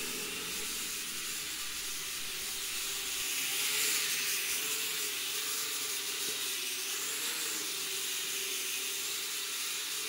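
Mini toy quadcopter hovering, its small motors and propellers giving a steady hiss over a faint buzzing tone that wavers slowly up and down in pitch.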